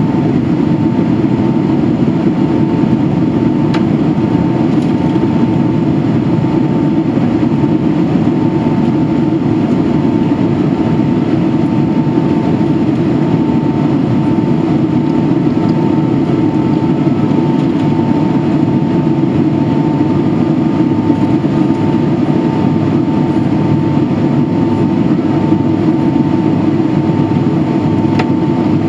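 Steady cabin noise of a Boeing 767-300ER in flight: the even rushing sound of its Rolls-Royce RB211 jet engines and the airflow, heard from a seat beside the wing, with a thin steady tone running through it.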